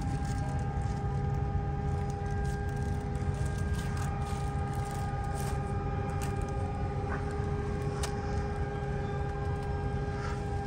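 Steady low hum and rush of air inside an Airbus A350 cabin from the air conditioning and onboard systems, with steady high tones over it and a few faint clicks.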